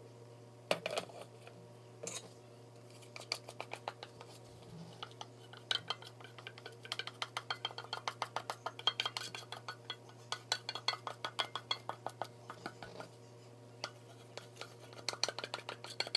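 Spatula scraping and clicking against a stainless steel mixing bowl as thick cream-cheese filling is worked out of it. A quick run of light clicks, several a second, starts about three seconds in, pauses briefly, and comes back in a last flurry near the end, over a steady low hum.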